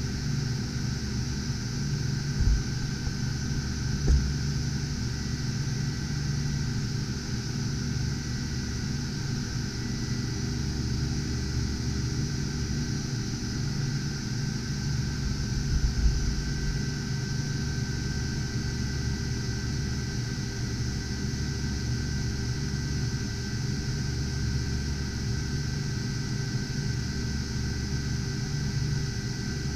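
Many GPU mining rigs' cooling fans running together, a steady whirring drone with a few faint tones in it. A few soft low bumps about two seconds in, about four seconds in, and around sixteen seconds in.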